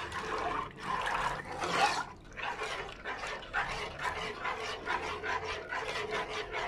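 A metal spoon stirring and scraping a thin milk-and-starch mixture around a granite-coated pan, a quick run of wet scrapes and swishes. It is being stirred constantly as it heats, so the starch does not catch or set in lumps.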